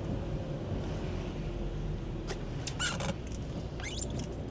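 Inside a car driving on a wet road: a steady low rumble of engine and tyre noise, with the windscreen wiper sweeping across the rain-wet glass and giving several short squeaks in the second half.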